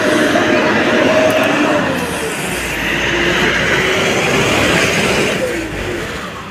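Bus engine running loud as a bus pulls past at close range, with a deep rumble building midway and the sound dropping off near the end.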